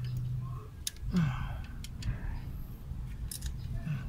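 Metal hand tools clicking and clinking on the valve gear of a Toyota 4K engine during valve clearance adjustment, a few separate sharp clicks.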